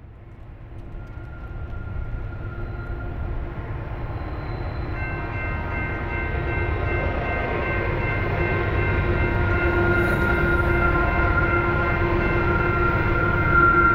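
Slow, heavily loaded coal train led by GE diesel-electric locomotives approaching, its low engine rumble growing steadily louder. Several steady high tones join about five seconds in and are loudest near the end.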